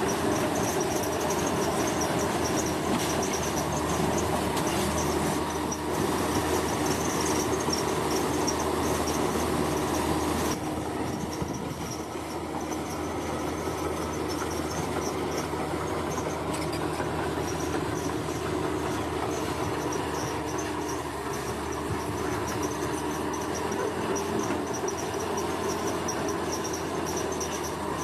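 Heavy diesel earthmoving machinery running steadily, with insects chirping high above it; the machinery gets quieter about ten seconds in.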